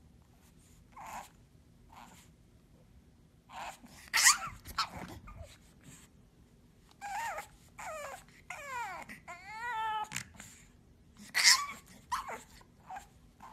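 Pug puppy yipping and whining: a run of short high yips, loudest about four seconds in and again near the end, with a few longer whines that waver in pitch in the middle.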